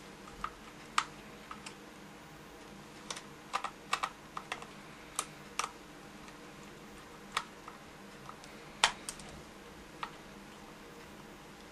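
Small screwdriver clicking against small countersunk screws as they are tightened into an airsoft AK74's receiver. Irregular sharp clicks, bunched a few seconds in, the loudest one near the end.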